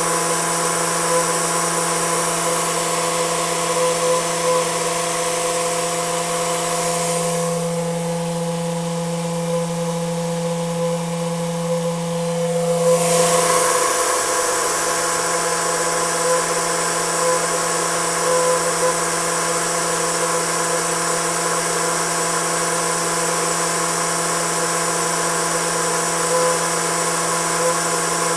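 Homemade Tesla turbine running steadily at about 10,000 rpm on 15 psi: a steady hum with several higher tones over a high hiss. The hiss dims for a few seconds midway, then swells back.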